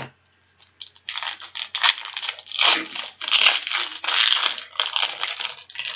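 A baseball card pack wrapper crinkling and tearing as it is opened, a run of crackly rustles starting about a second in.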